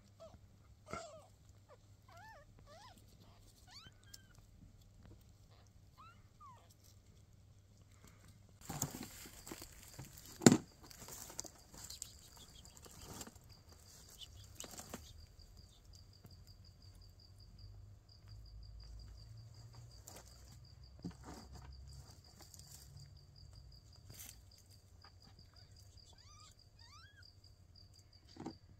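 Faint, thin mews of newborn kittens, broken by a few loud knocks and rustles of handling about nine to eleven seconds in. A steady, pulsing high trill runs underneath from about twelve seconds on.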